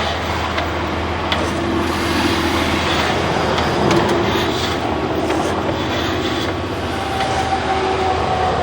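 A steady mechanical rumble with a low hum and a faint wavering drone. A thin steady tone comes in near the end.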